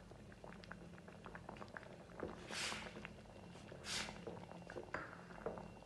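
Sweet corn soup simmering in a stainless steel pan with faint scattered popping, stirred with a long spatula after cornflour slurry is added: two short scraping swishes, about two and a half and four seconds in. A steady low hum runs underneath.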